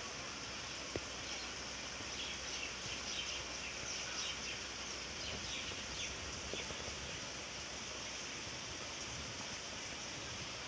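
Steady rush of flowing river water, with faint short high chirps scattered through it, mostly in the first half, and a small click about a second in.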